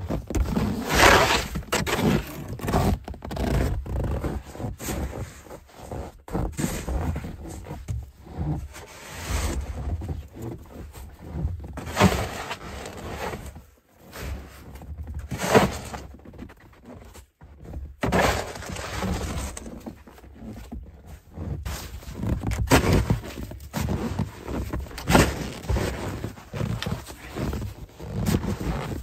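Plastic-bladed snow shovel scraping and scooping snow off a wooden deck, stroke after stroke at an uneven pace, with a sharp knock of the blade now and then.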